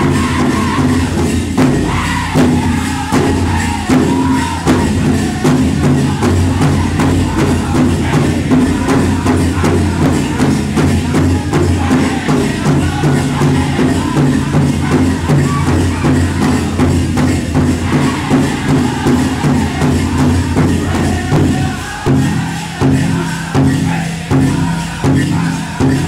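Powwow drum group singing over a steady pounding drum beat, with a jingling of dancers' bells. About 22 seconds in, the beat changes to spaced, separate strikes.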